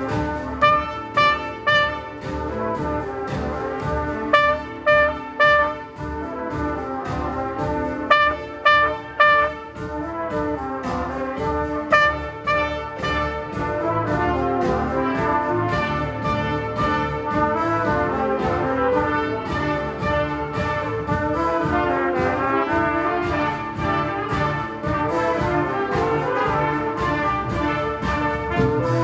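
Brass ensemble of trumpets and trombones playing live. Under a held chord come short loud stabbed notes in quick groups of three or four, four such groups in the first dozen seconds. From about ten seconds in, many overlapping held and moving lines take over.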